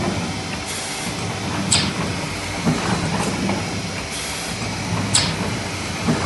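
Albert cylinder die cutter running, a steady mechanical clatter with short hisses, sharp clicks and low thuds repeating about every three and a half seconds as it cycles.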